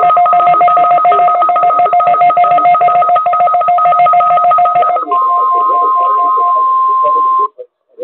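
Weather alert radio receiving a NOAA Weather Radio Required Weekly Test. The EAS (SAME) header's buzzing digital data tones play for about five seconds. A single steady alert tone follows and cuts off abruptly about seven and a half seconds in.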